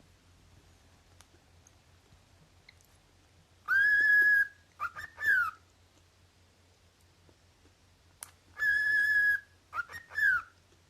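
Cockatiel whistling a loud call twice, about five seconds apart. Each call is a long held whistle followed by two short whistles that slide up and down.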